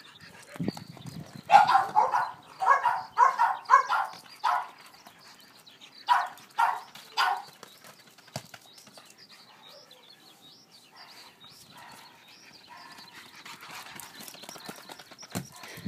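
Boston terrier barking excitedly: a quick run of short barks, then three more about six to seven seconds in.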